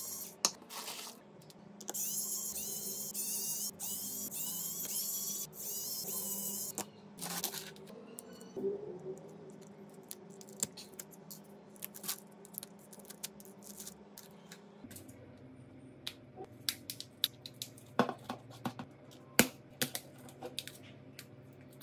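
Phone repair handling: a few seconds of loud hissing with brief breaks, then a long run of light clicks and taps of small tools on the phone's parts, over a steady low hum.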